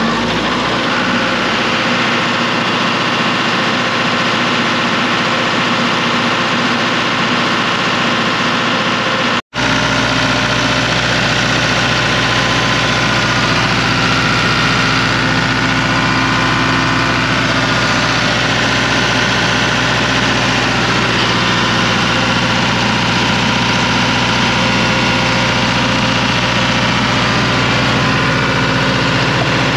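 Caterpillar 3054 (Perkins) four-cylinder diesel engine of a generator set running steadily on its newly replaced fuel injection pump and governor. The sound cuts out for an instant about nine seconds in.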